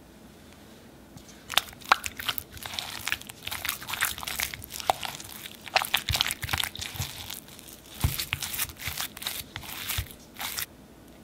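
A spatula mixing beaten egg into cooked choux paste in a glass bowl: the egg is worked into the cooked flour-and-butter dough. The mixing sounds are sticky, with many sharp clicks and taps of the spatula against the glass and a few dull knocks. They start about a second and a half in and stop just before the end.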